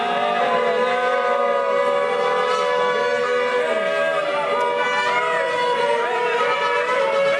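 Several shofars blown together in overlapping long, held notes at different pitches, each bending at its end.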